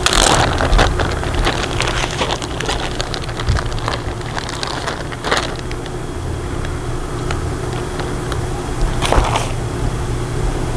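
Plastic bag crinkling and rustling as marinated meat pieces are tipped out of it onto a cutting board, with sharper crackles near the start, about five seconds in and about nine seconds in, over a steady low hum.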